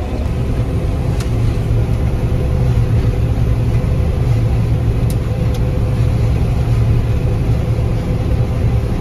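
Combine harvester running steadily while harvesting: a loud, even engine drone with a steady higher hum above it.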